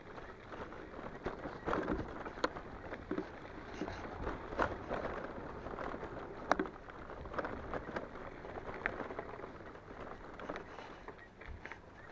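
Electric bike rolling over a rough dirt track: tyres crunching on the ground, with the bike and its load rattling and knocking irregularly over the bumps.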